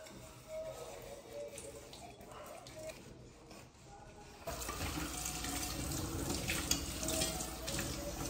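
Dishes being washed by hand at a stainless steel kitchen sink. A sponge scrubs quietly, then about halfway through the tap is turned on and water runs steadily into the sink as cutlery is rinsed.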